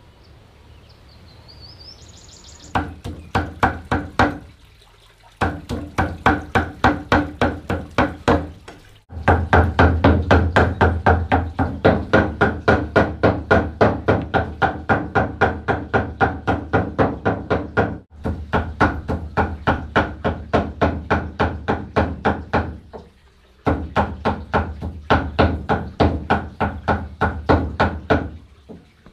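Kitchen knife shaving thin slices off a fresh bamboo shoot: quick, crisp cutting strokes, about four a second, in runs broken by short pauses.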